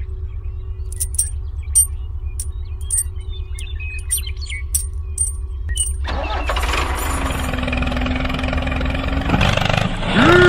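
Engine running with a steady low rumble and scattered light clicks. About six seconds in it grows fuller and louder, like an engine starting up for the tow.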